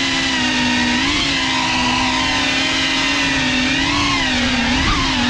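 GEPRC CineLog35 ducted cinewhoop drone's brushless motors and propellers whining steadily in flight, with a few brief rises in pitch as the throttle is pushed.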